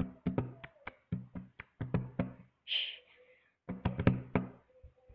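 Hand-clapping table routine: palms slapping a tabletop and hands clapping in a quick rhythm, about five strokes a second. A brief hiss-like swish comes about two and a half seconds in, then a short final cluster of slaps and claps stops about a second before the end.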